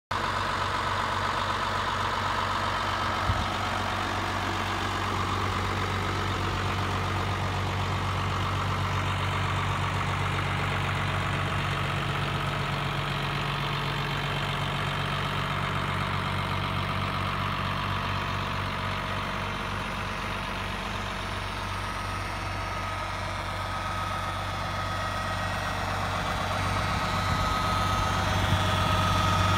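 New Holland TM190 tractor's six-cylinder turbodiesel idling steadily, with a faint whine over the low engine note. There is one short tap about three seconds in, and the engine gets a little louder near the end.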